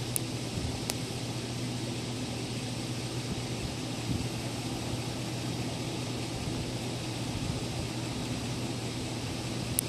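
Heavy-haul semi truck's diesel engine running steadily as it pulls a long load slowly through a turn: a low, even hum over a constant hiss. A couple of faint clicks come near the start and again near the end.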